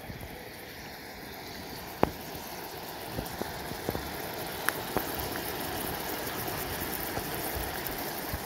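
Yellow-foot chanterelles and sliced red onion sizzling in a frying pan on a Coleman propane camp stove, a steady hiss that grows a little louder. A few sharp metal clicks, the loudest about two seconds in.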